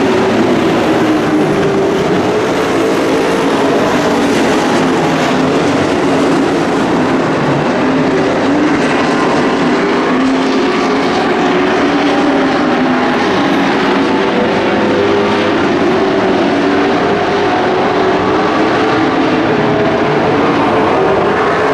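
Dirt-track race trucks' engines running hard together around the oval, a steady loud din with several engine pitches wavering up and down as the trucks race past.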